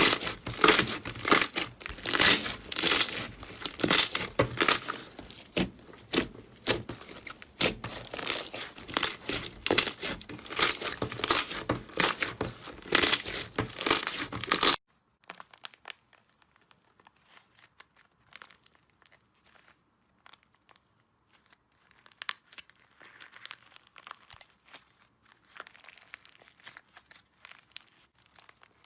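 Slime being squeezed and pressed by hand, giving dense, rapid crackling and crinkling. About halfway through it cuts off suddenly, leaving only faint scattered clicks.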